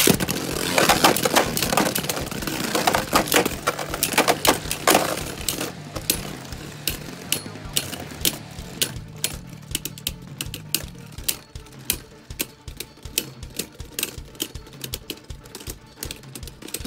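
Two Beyblade spinning tops launched into a plastic stadium, then clashing and rattling against each other: a dense run of sharp clicks for the first few seconds that thins into separate knocks a few times a second as the tops slow and grind together.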